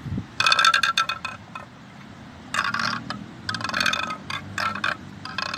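Ruach, a cane (carrizo) friction idiophone, rubbed in about five rasping strokes, each with a ringing pitched edge, the first the longest and loudest. It is sounded with the zambomba's box as a resonator, which amplifies it.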